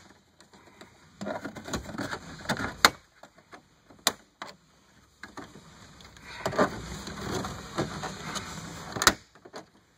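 Plastic radio trim bezel on a GM full-size truck dash being pried loose by hand and with a plastic pry tool: plastic rubbing and creaking, with three sharp snaps as its retaining clips pop, two close together a third of the way in and one near the end.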